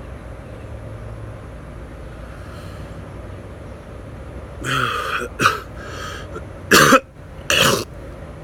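A man hiccuping loudly: a run of short, sharp vocal hiccups starting about halfway through, the last two the loudest and under a second apart.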